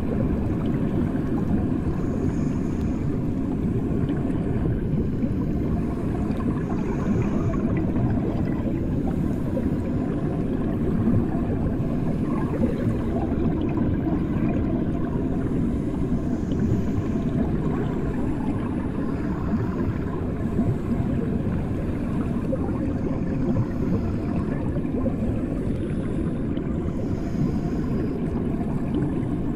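Steady, muffled low rumble of bathwater heard through a microphone submerged in the tub.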